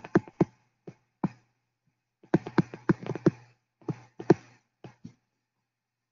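A stylus tapping and clicking against a tablet screen while handwriting, in irregular clusters of sharp clicks with a faint low hum beneath them.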